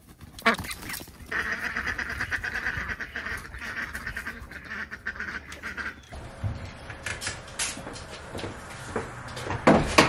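A flock of runner ducks quacking and chattering rapidly as they are let out of their run. About six seconds in the calls give way to a steadier background with scattered knocks and clicks, the loudest near the end.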